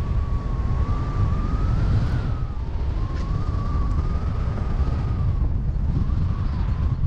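Airflow buffeting the microphone of a paraglider in flight, a rough rumbling rush, with a thin continuous tone wavering slowly up and down in pitch above it.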